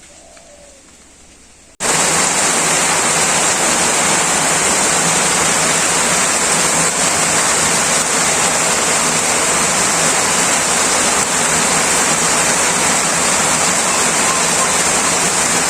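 Heavy rain pouring steadily, cutting in suddenly about two seconds in after a faint, quiet start.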